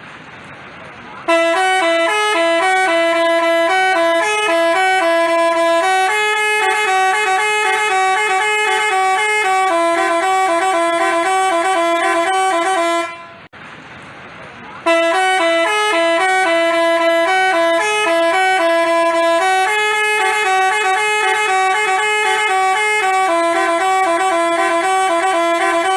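Telolet basuri multi-tone bus horn playing a bright, stepping melody. The same tune plays twice, each run about twelve seconds long with a short break between, after a second of quiet hiss at the start.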